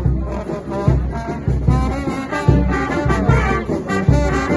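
Brass band playing live, trumpets and trombones over a steady beat.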